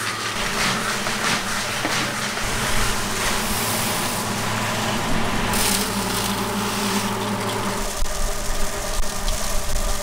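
Roasting soybeans rattling and scraping against a large iron wok as they are stirred with a wooden stick. A couple of seconds in, a motor-driven machine takes over, running steadily with a constant hum as the roasted beans pour through it and are cracked into halves.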